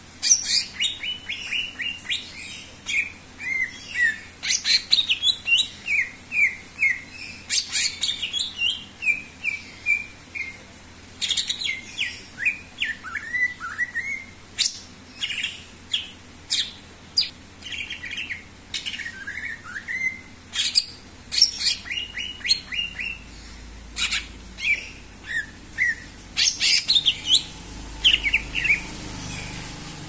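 A caged cucak ijo (green leafbird) singing vigorously and almost without pause: quick runs of short chirps that slide down in pitch, mixed with sharp high whistles and clicks, in phrases broken by brief gaps.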